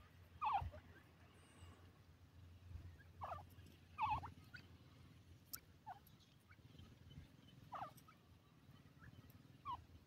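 Young grey francolin giving short chirping calls, each a quick falling note, about six of them at irregular intervals of a second or two.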